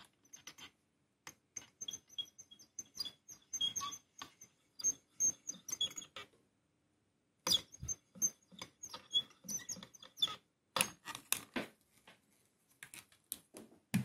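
Solder and rosin flux crackling and spitting as solder melts onto a copper plate under the heated tip of a soldering gun, in irregular small clicks with a short pause part-way through.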